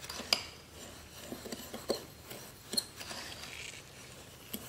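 Metal fork stirring dry sugar, flour and salt in a glass bowl: a few light, irregular clinks of the fork against the glass, with a gritty scraping of the granules about three seconds in.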